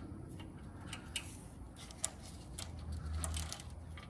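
Scattered light metallic clicks and clinks of hand tools and loose engine parts being handled, with a short low rumble about three seconds in.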